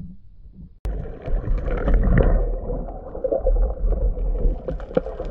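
Underwater sound on a diver's camera: a low rumbling wash of water moving around the housing, with scattered clicks and pops. It starts abruptly about a second in.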